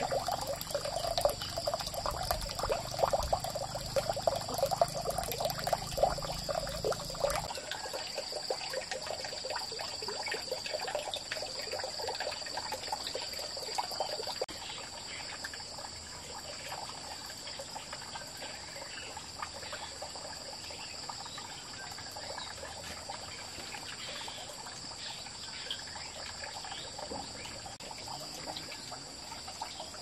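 Outdoor ambience: steady high insect trilling over a light trickle of running water. A denser crackling layer and a low rumble cut off abruptly about a quarter of the way in.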